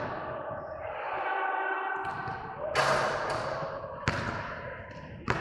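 Three sharp thuds about a second apart, each with a short ringing tail, over faint voices.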